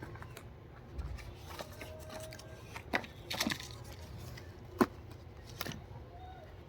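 Packaging being handled and opened: a handful of sharp crackles and clicks over a low room hum, the loudest almost five seconds in.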